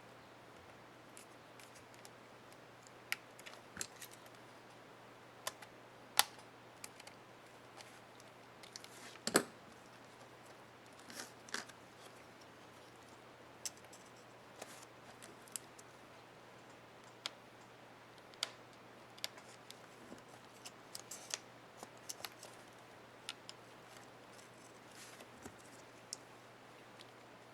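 Irregular small clicks and taps of plastic keycap parts being handled and pressed on a laptop keyboard (HP ENVY 15), while its space bar keycap is being refitted.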